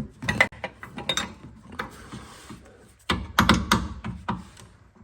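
A hand wrench working a control-arm bolt on a car's front suspension: irregular bursts of sharp metal clicks and clinks, with a denser run of them about three seconds in.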